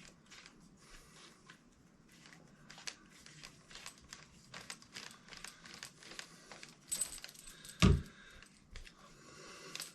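Small clicks and rattles of a metal detector's shaft sections and nut being handled as the spring pins are pressed and the shaft is lined up and tightened, with one louder knock about eight seconds in.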